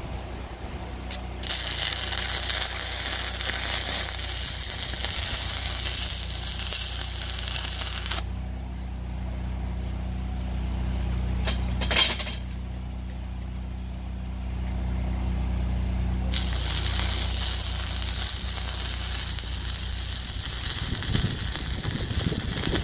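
MIG welding: the arc crackles and hisses in two stretches of about six seconds each, over a steady low hum. A single sharp click falls in the pause between them.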